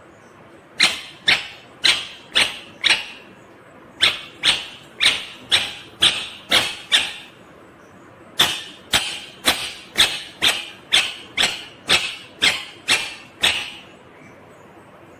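Indian ringneck parrot calling loudly over and over in three runs: about five calls, then seven, then eleven, roughly two a second, each call short and sharp.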